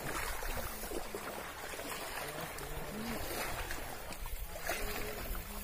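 Faint distant voices talking now and then over a steady outdoor hiss.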